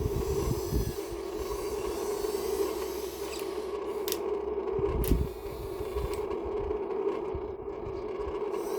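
Radio-controlled construction models at work: a steady whine from their small electric motors, with low rumbling and scraping and two sharp clicks about four and five seconds in.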